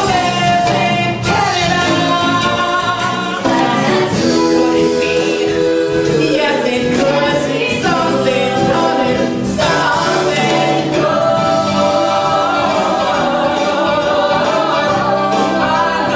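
Stage musical number: several voices singing together over instrumental accompaniment.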